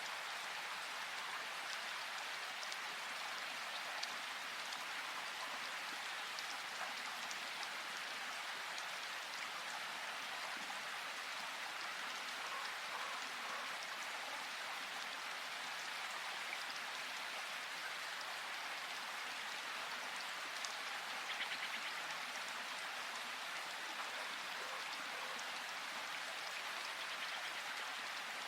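Steady rain falling in a forest: a constant hiss of rainfall with scattered individual drops ticking on surfaces.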